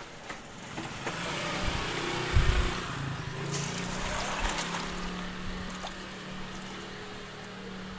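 Ice clattering and tea sloshing as a plastic dipper pours and stirs through a bucket packed with ice, with a dull knock about two and a half seconds in, over a steady low hum.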